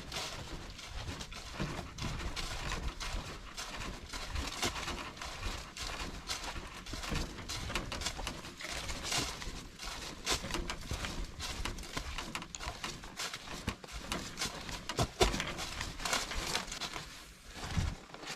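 Footsteps on a soft, wet woodland trail: a steady run of irregular crunches, thuds and rustles.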